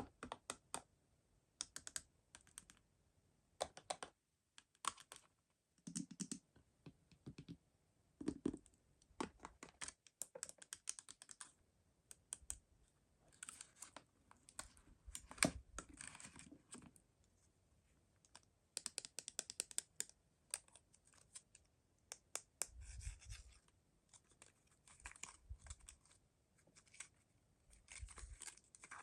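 Hands unboxing mystery toy packaging: an irregular run of small sharp clicks, taps, scratches and tearing, in clusters with short pauses between, and a few soft low thuds.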